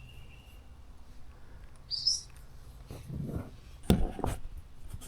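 A single short, high animal chirp about two seconds in, over low background hum, followed by a few short knocks a little before the end.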